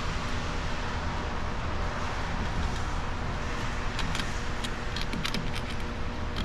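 Light metallic clicks and ticks, several in quick succession from about four seconds in, as the Valvetronic intermediate levers and rockers are handled and settle onto a MINI cylinder head. Under them, steady background noise with a faint hum.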